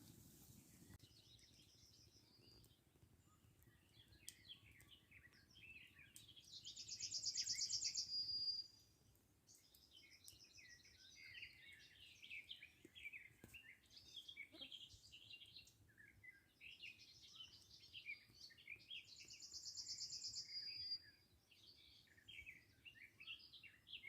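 Several songbirds singing outdoors: scattered short chirps throughout, and twice a loud, rapid high trill of about two seconds ending in a lower drawn-out note.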